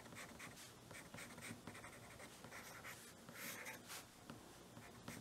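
Graphite pencil scratching across sketchbook paper in a run of short back-and-forth shading strokes, faint and uneven.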